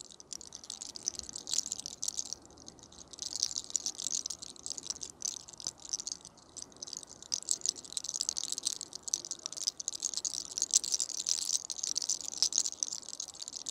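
Hair cracking: a lock of hair twisted and rolled tightly between the fingers and pulled, giving a dense, irregular run of fine, high crackles and rustling.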